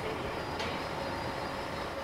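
Steady mechanical rumble of a moving escalator in subway station ambience, with a faint steady hum and one brief click about half a second in.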